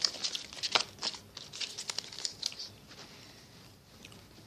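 Paper being handled: a quick run of crinkles and rustles that dies away about three seconds in.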